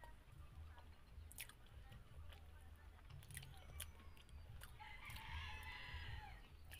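Quiet chewing and wet mouth clicks of someone eating curry and rice by hand. A rooster crows in the background about five seconds in, the loudest sound here, lasting about a second and a half.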